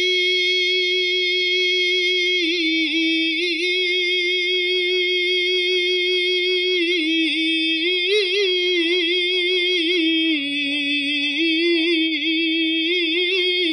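A single voice holds one long sung note of an unaccompanied Arabic naat, with no instruments. The note wavers in ornamental turns a couple of seconds in, again around the middle, and once more later on.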